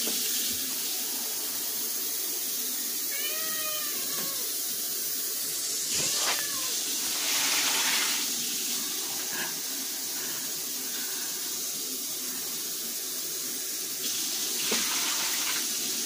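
Kitchen faucet running steadily, filling a plastic measuring pitcher with water, with a couple of light knocks.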